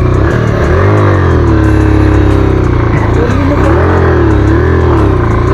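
Motorcycle engine revving up and down over and over, about once a second, as the bike struggles in deep mud and makes no headway.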